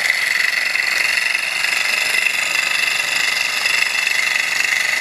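Small gamma-type walking-beam Stirling engine running fast with a steady rapid rattle as it vibrates badly against the tile floor, shaking itself across the floor; the owner puts it down to a flame that is too big and a flywheel that seems out of balance.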